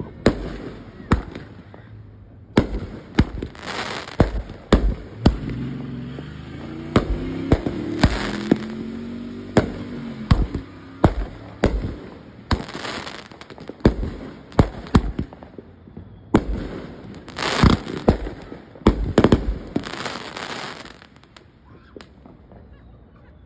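Aerial fireworks bursting overhead: a rapid, irregular run of sharp bangs, several trailing into crackling, that thins out and grows quieter near the end. A low wavering tone rises and falls under the bangs through the middle.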